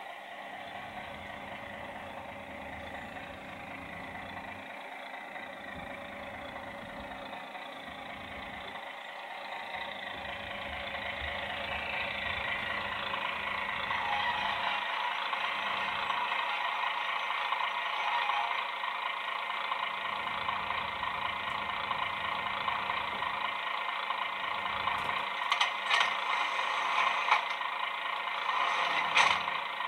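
DCC sound decoder in a Heljan OO gauge Royal Mail Class 128 DPU model playing its diesel engine sound through a small onboard speaker, growing louder as the model comes closer, with a few sharp clicks near the end.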